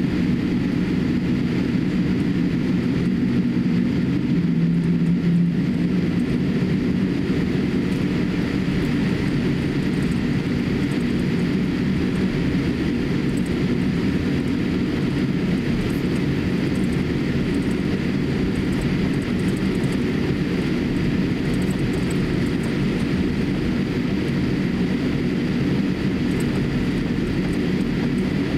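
Boeing 787-8 jet airliner taxiing, heard from inside the cabin: a steady low engine-and-rolling rumble with a faint steady whine above it.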